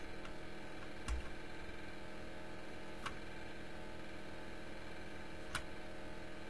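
Three sharp computer mouse clicks, about a second in, three seconds in and near the end, over a steady low electrical hum.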